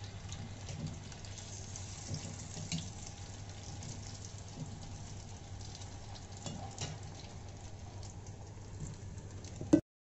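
Malai koftas deep-frying in ghee in a kadhai: a steady sizzle with a few faint crackles over a low hum. Near the end a sharp click, and then the sound cuts off abruptly.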